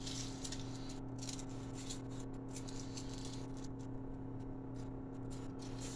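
Uncle Ray's ridged potato chips crackling and rustling on a plate as they are picked up, in short irregular crisp bursts over a steady low hum.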